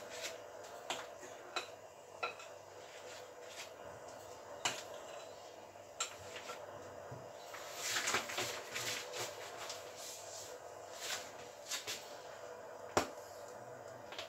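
Scattered clicks and taps of a spatula against a bowl as a plastic piping bag is filled with cream cheese frosting, with a burst of crinkly rustling from the bag about eight seconds in and a sharper knock near the end, over a faint steady hum.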